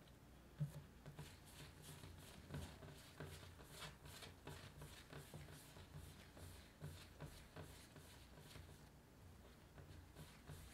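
Faint rubbing and soft ticks of bread dough being rounded into a ball under a cupped hand on a smooth countertop, with one sharper soft knock about half a second in as a dough ball is set down.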